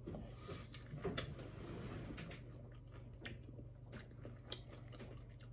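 Faint wet clicks and smacks of a man biting and chewing a bite of fresh pineapple spear, scattered every half second to a second.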